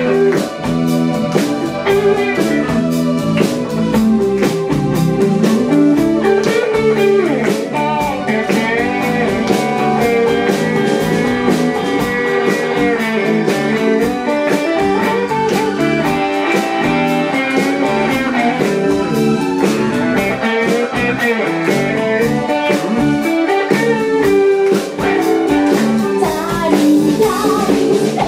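A live band playing an oldies pop number on electric guitar, electric bass, drum kit and keyboard, with a woman singing into the microphone at times.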